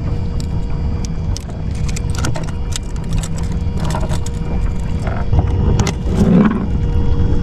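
Wind buffeting the microphone and water moving against a kayak hull make a steady low rumble. Scattered sharp clicks and knocks come from handling the fish and rig on deck, with a louder bump about six seconds in.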